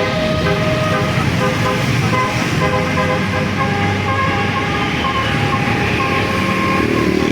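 Bus's Basuri telolet horn, a set of multi-tone air horns playing a tune of short, quickly changing notes over the rumble of the bus engine.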